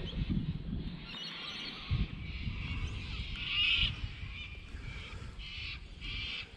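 Birds calling several times over a low rumble of wind on the microphone.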